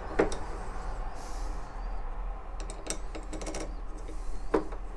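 A few small clicks and taps of metal parts as the night latch's cover is fitted back on and its screws are handled and driven in: one just after the start, a cluster about halfway through, and one near the end.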